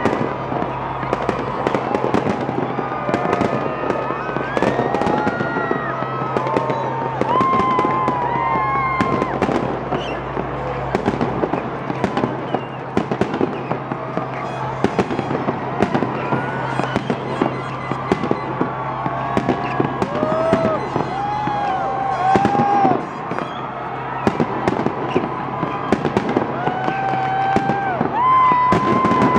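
Fireworks going off in a dense, continuous run of bangs and crackles, with music and voices underneath.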